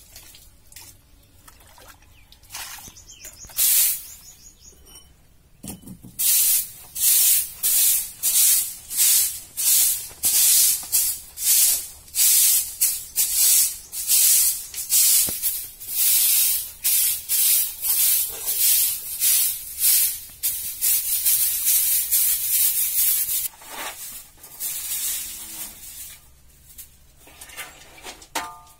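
Short grass hand broom sweeping an earthen floor: a steady run of scratchy swishes, about three strokes every two seconds. Near the end the sweeping gives way to quieter, scattered scraping.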